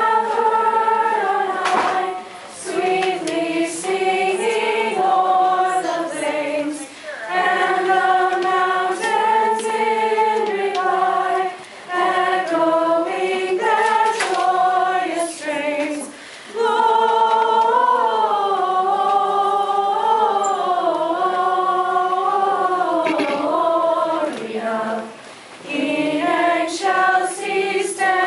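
Girls' choir singing a Christmas carol in unison-style phrases, with short pauses for breath between lines.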